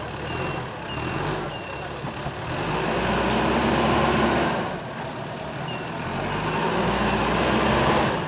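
Heavy vehicle engine running and revving twice, louder for a couple of seconds each time, with a reversing alarm beeping about twice a second at first.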